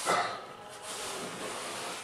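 Rubber grout float scraping and rubbing grout into a joint on porcelain wall tile: one louder scraping stroke at the start, then fainter rubbing.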